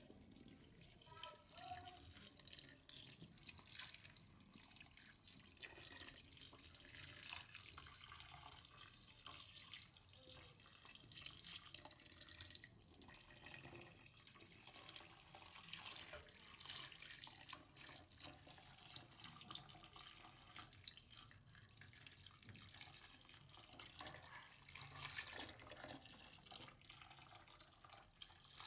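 Hot water poured from above into a metal pot over pieces of catfish: a faint, steady trickling and splashing.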